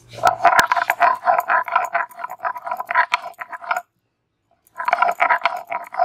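A stone pestle (nora) rolled and scraped back and forth on a wet stone grinding slab (shil), grinding ginger into paste. It is a quick series of gritty, rasping strokes that stops briefly a little before four seconds in, then starts again.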